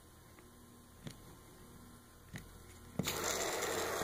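Pressurized can of expanding foam sealant dispensing through its thin straw: two faint clicks, then a sudden loud hissing spurt starts about three seconds in.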